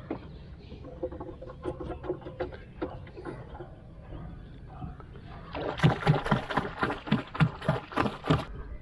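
Faint handling clicks, then a rapid run of about a dozen sharp splashing strikes, about four a second, as a hand beats the water at the side of a wooden canoe.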